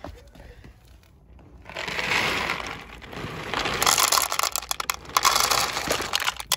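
Dry cat food being poured from a bag into a plastic bowl: the bag rustles and the kibble rattles into the bowl. It starts about two seconds in and gets heavier from about four seconds in.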